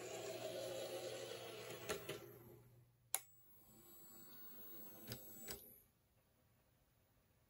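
Small electric motors of an HO-scale model cable car layout: the car's Kato 11-109 powered chassis whirs and fades out with a click, then after a sharp click a quieter whir as the turntable rotates the car, stopping with two clicks just before the end.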